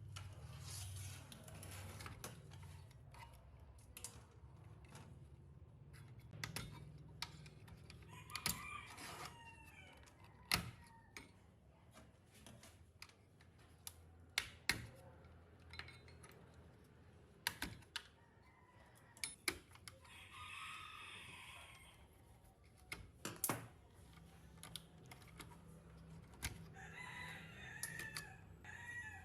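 Chickens clucking three times, set against irregular sharp clicks and taps and a low steady hum.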